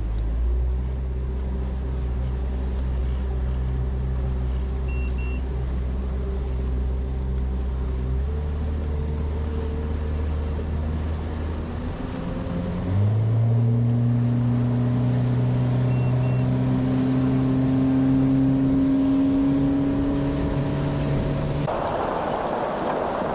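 Honda 90 outboard motor running, stepping up in pitch about eight seconds in and again halfway through, then climbing slowly as the boat gathers speed. Two short double beeps sound about five and sixteen seconds in. Near the end the engine tone gives way to a steady rush of wind and water noise.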